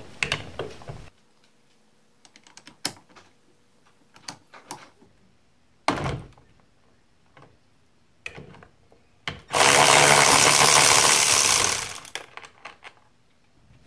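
Quiet clicks and clinks of tools on the steering wheel's 21 mm centre bolt, then a power tool runs loudly for about two and a half seconds on the bolt, stopping abruptly.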